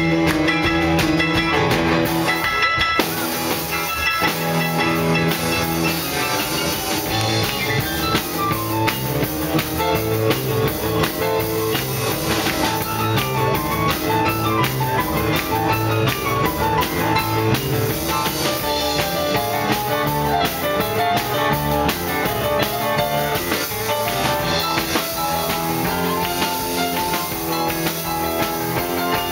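Live band playing rock and roll on keyboard, electric guitar and drum kit, with a steady drum beat.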